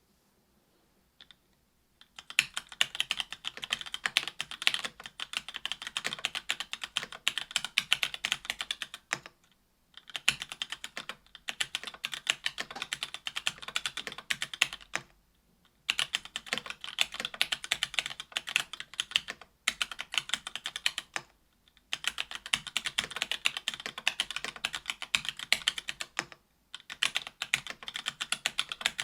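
Typing on an AL.BOK mechanical keyboard with stock Gateron Clear 40g linear switches, an aluminum plate and GMK keycaps: fast runs of keystrokes broken by short pauses of about a second. The typing starts about two seconds in, after a single key click.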